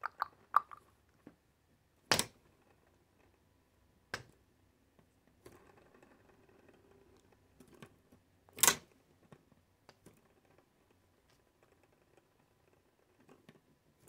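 Handling noise: a few sharp knocks and clicks, the strongest about two seconds in and near nine seconds, with faint rustling between, as a hand touches and spins a small homemade toy ceiling fan.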